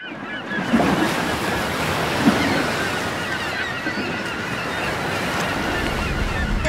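Underwater ambience: a steady rush of water, fading in over the first second, dotted with many small quick bubbling chirps.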